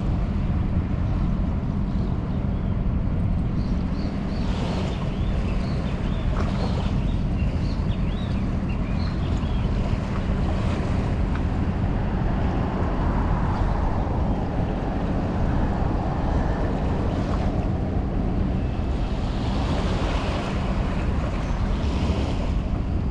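Steady low rumble of boat engines mixed with water noise, with wind buffeting the microphone.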